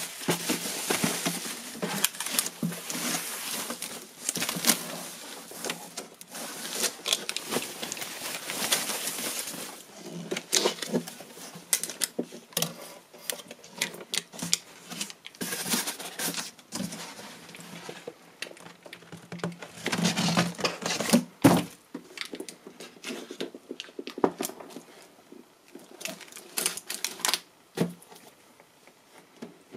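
Packing paper and foam rustling and crinkling as a monitor is unpacked from its cardboard box, with many small clicks, scrapes and knocks of plastic parts and cardboard being handled. One sharper knock comes about two-thirds of the way through.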